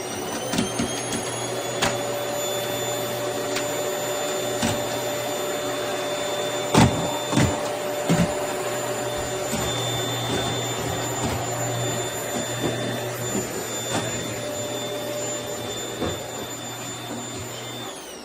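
Household vacuum cleaner running steadily with a high motor whine, its pitch still climbing as it comes up to speed at the start, with a few sharp knocks in the middle; near the end the motor is switched off and winds down.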